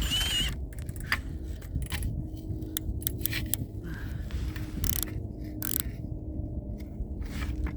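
Milwaukee Fuel brushless cordless drill turning an Eskimo ice auger through pond ice: a steady low motor drone with irregular crunching and clicking of ice being cut. The auger blades are dull, so the drilling is hard going.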